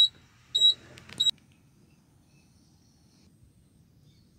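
Three short, high-pitched electronic beeps in the first second and a quarter, the last one a quick double, then only a faint low background hiss.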